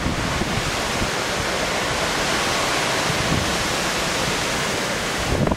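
Steady rushing hiss of hurricane wind and water, with a couple of low gusts buffeting the microphone near the end.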